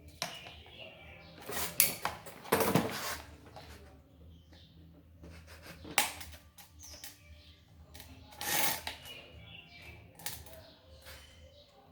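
Irregular clicks, knocks and short scraping rustles of fan parts and tools being handled during a repair, with a few louder strikes about two, six and eight and a half seconds in.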